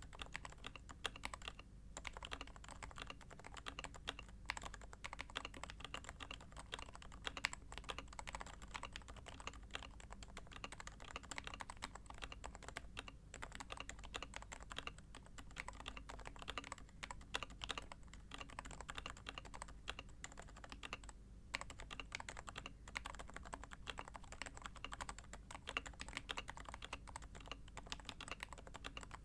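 Steady typing on a custom Topre keyboard: a Sho S60v2 polycarbonate board with a copper plate, 45 g HHKB rubber domes and DCS blank keycaps. The keystrokes come in quick, even succession with a relatively muted sound, with brief pauses about two seconds in and again around twenty-one seconds.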